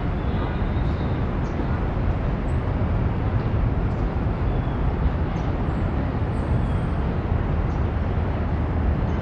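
Steady outdoor city ambience: a constant low rumble of distant traffic with no distinct events.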